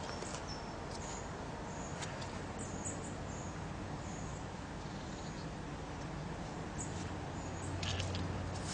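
Steady background noise with a low hum, and short, faint, high-pitched chirps scattered throughout.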